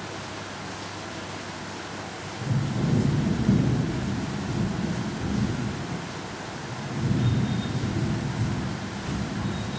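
A steady background hiss, then a loud low rumble that swells in about two and a half seconds in, dies down, and swells again about seven seconds in.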